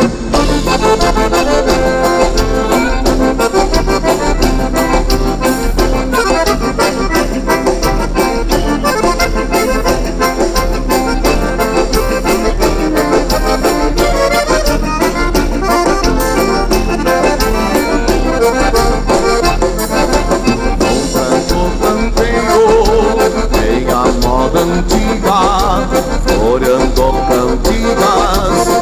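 A gaúcho dance band plays an instrumental passage led by the accordion over a steady, even beat.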